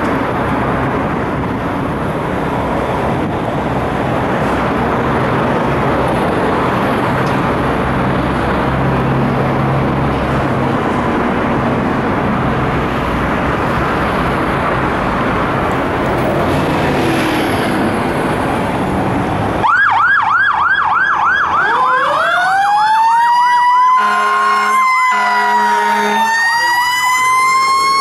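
Steady background street noise, then about two-thirds in a fire engine's sirens start: a fast electronic yelp, then a Federal Q2B mechanical siren winding up into a rising wail. Air horn blasts come in the middle of the wail, which keeps going as the engine responds to a call.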